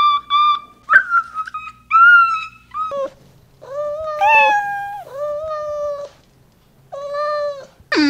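A domestic cat meowing repeatedly: several drawn-out meows of about a second each, rising and then held. In the first three seconds, before the meows, there is a run of short, high-pitched squeaky calls.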